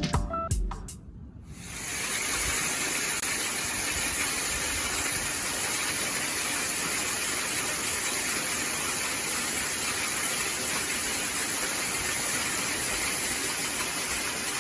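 A few plucked music notes die away, then a steady, even hissing rush of typhoon storm noise, heavy rain and wind, sets in and holds unchanged.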